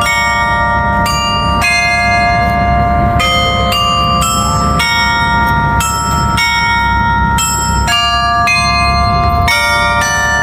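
The tower's carillon bells playing a slow melody, a new bell struck about twice a second, each note ringing on under the next, over a steady low rumble.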